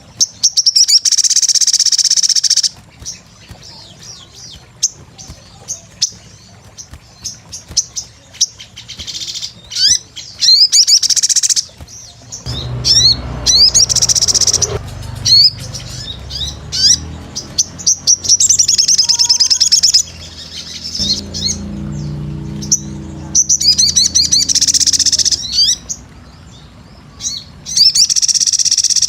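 Crimson sunbird (sogon) singing vigorously: loud, high-pitched bursts of rapid twittering chirps, each lasting a second or two and repeated every few seconds. A low rumble sits under the song through the middle.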